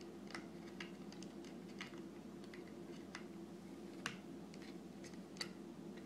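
Faint, irregular small clicks and ticks, the sharpest about four seconds in, as the bracelet jig's blue locking tool is turned counterclockwise by hand to unscrew the nut on its threaded post. A steady low hum runs underneath.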